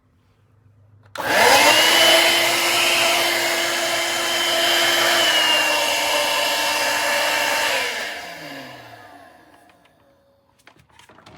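Shark Navigator Freestyle cordless stick vacuum switched on about a second in, its motor running with a steady whine for several seconds. It is switched off near eight seconds and the motor winds down with falling pitch, followed by a few light clicks near the end.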